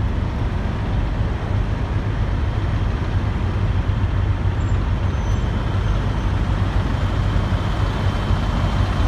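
Steady low rumble of diesel semi-trucks idling and moving around a truck stop lot.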